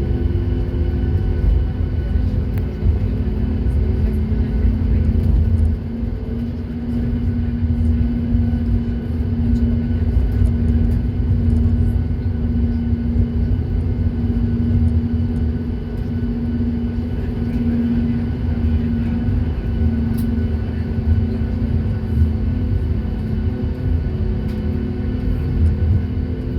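Aircraft engines droning steadily: a continuous low rumble with a steady hum on top.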